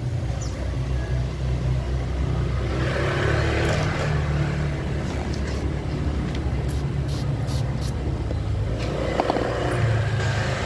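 Motor scooter engines running in the street, a steady low rumble that swells about three seconds in and again near the end, with a few short clicks in the middle.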